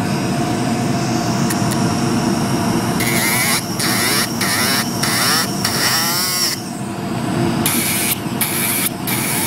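Nail desk dust-vent fan running steadily, with repeated short filing strokes, a few a second, on a nail's free edge; the strokes come in two spells, from about three seconds in and again near the end.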